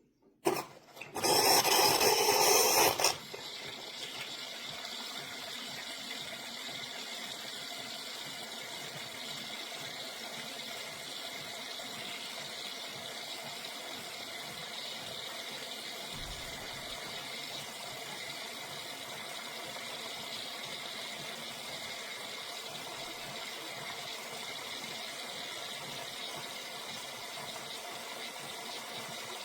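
Espresso machine running: a loud burst for about two seconds near the start, then a steady rush of water or steam that runs on evenly.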